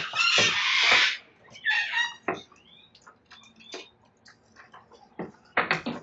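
Sulphur-crested cockatoos screeching: one long harsh screech in the first second, shorter calls around two seconds in, and another burst of screeches near the end. In between come scattered sharp cracks and clicks of their beaks chewing the wooden verandah rail.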